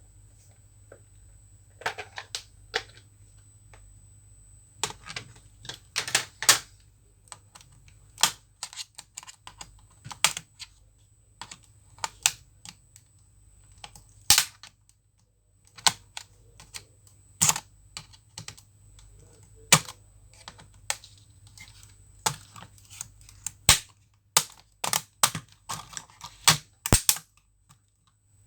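Irregular sharp clicks and taps of a screwdriver and hands working on a Dell Latitude E5470 laptop's chassis, as the keyboard screws are taken out during disassembly. The clicks come one or two at a time, a few per second at the busiest, with gaps between.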